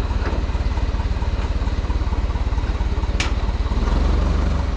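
Forklift engine idling with a steady low pulse, with one sharp click about three seconds in and the engine growing a little louder near the end.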